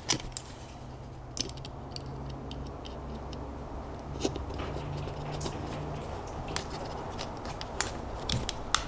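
Scattered small plastic clicks and ticks as a removal tool is worked inside a push-button housing in a truck dash, trying to release the button. A steady low hum runs underneath.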